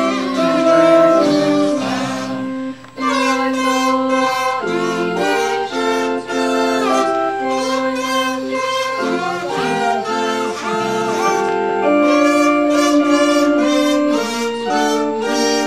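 A tune played on an electronic keyboard, with two children blowing buzzy sustained notes along on plastic toy horns. The notes change pitch like a melody, with a short break about three seconds in.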